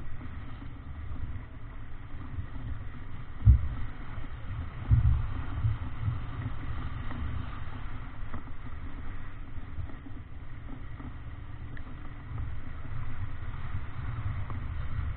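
Wind buffeting the microphone on a heeled, racing sailboat, with water rushing past the hull. A sharp thump comes about three and a half seconds in, and a louder gust about five seconds in.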